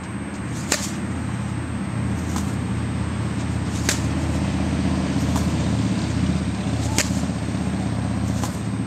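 Tennis balls struck by a racket about every three seconds, three sharp hits, with fainter knocks between them. Under them runs a steady low engine hum.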